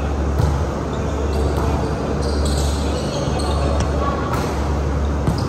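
Volleyball rally on a hardwood gym court: the ball is hit by hands several times, and sneakers give short high squeaks on the floor. Players' voices and a steady low hum run underneath.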